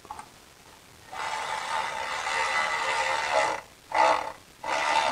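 Milwaukee M12 cordless ratchet's motor whirring as it runs in the new water pump's mounting bolts. It gives one long run of about two and a half seconds, then two short bursts.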